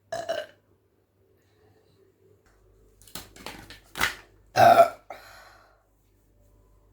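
A woman burping after drinking soda: a short burp at the start, a few short clicks around three seconds in, a brief burp about four seconds in, then the loudest and longest burp just before five seconds, trailing off faintly.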